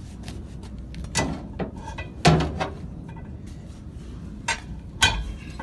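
Steel tyre bars clanking as they are worked in at the bead of a truck tyre on an aluminium rim: several sharp metallic knocks, the loudest a little over two seconds in.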